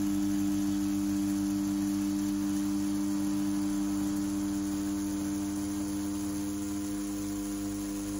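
CNC T4 rotary tattoo pen running steadily at about 7 volts with a 5-round liner needle while lining, a constant even-pitched hum.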